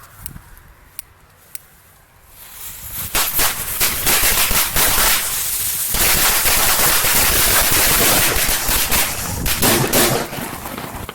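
A string of firecrackers going off in a rapid, dense volley of bangs, starting about two seconds in, running for about seven seconds and thinning out near the end.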